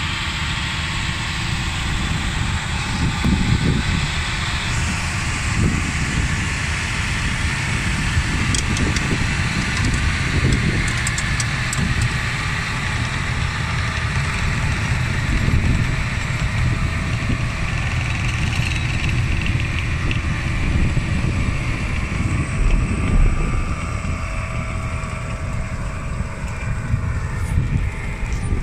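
John Deere tractor's diesel engine running under load while pulling and driving a Struik Varix 3000 bed former that shapes the soil into beds, a steady continuous mechanical rumble.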